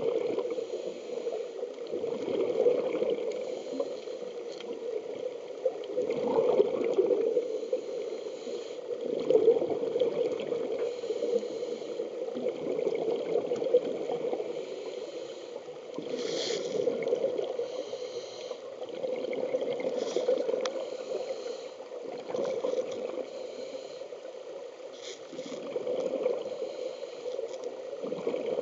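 Muffled underwater noise of scuba breathing through a regulator, with exhaled air bubbling away, swelling and fading every few seconds as heard through an underwater camera housing.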